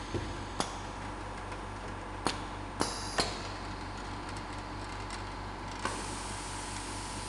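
Belt conveyor of a CIM production line running with a steady hum, with a few sharp clicks and knocks as product pallets travel along the track, several close together about two to three seconds in and one more near the end.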